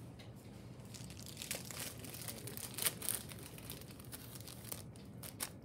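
Paper crinkling and rustling as it is handled, with a few sharper crackles; the loudest comes about three seconds in.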